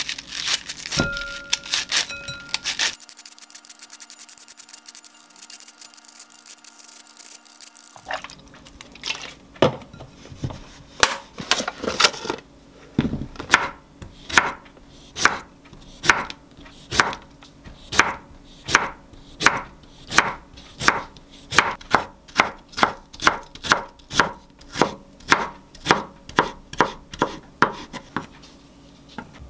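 A hand-held peeler shaving cabbage at first. Then a kitchen knife slicing cucumber on a wooden cutting board, sharp knocks in a steady rhythm of about one and a half a second.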